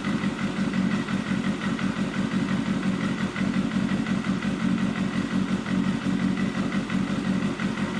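Kawasaki Balius II's 250 cc inline-four engine idling steadily.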